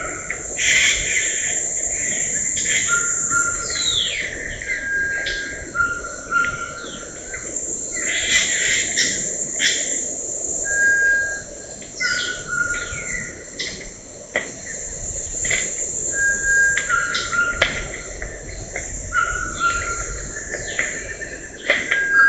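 Rainforest insects keep up a steady high-pitched chorus while birds call over it. One bird repeats a short two-note whistle, the second note a little lower, every two to three seconds, and others give downward-sliding calls.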